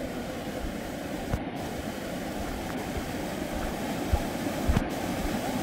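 Spring water rushing and churning along a stone channel as one steady noise. A couple of brief low knocks come near the end.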